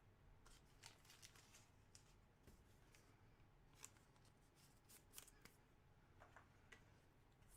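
Near silence with faint, scattered ticks and rustles of trading cards being handled.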